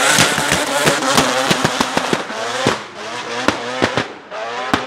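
Drift car's engine revving hard and rising and falling in pitch, with many sharp exhaust pops and bangs. The sound grows fainter near the end as the car pulls away.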